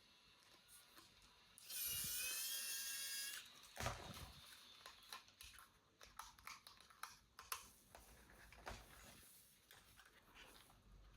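A toy's small electric motor whirs with a high whine for about a second and a half, then stops. A sharp click follows, then light clicking and rustling as the toy and its packaging are handled.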